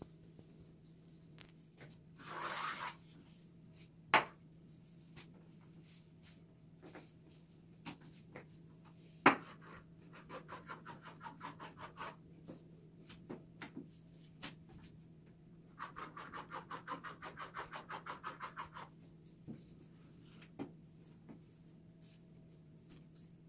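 Kitchen utensil handling: two runs of quick, even scraping strokes, about seven a second, with a few sharp knocks of a utensil, the loudest about four and nine seconds in.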